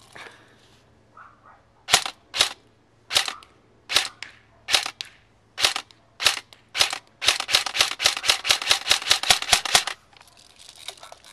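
KWA SR10 electric airsoft rifle firing: eight single shots about half a second to a second apart, then a quick string of roughly eighteen shots at about seven a second that stops suddenly around ten seconds in.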